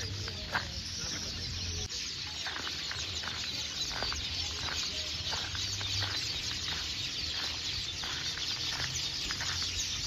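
A colony of weaver birds chattering at their nests: many short chirps overlapping in a dense, continuous din, over a low rumble.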